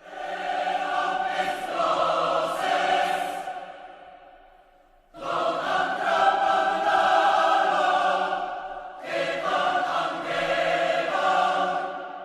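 Choir singing long held chords in three phrases, each swelling and then fading away; the first dies out about four and a half seconds in before the next begins.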